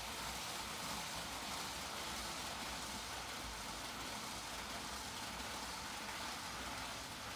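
TOMIX N-gauge model trains running on the layout's track under automatic control: a steady, even rolling hiss with no clear beat.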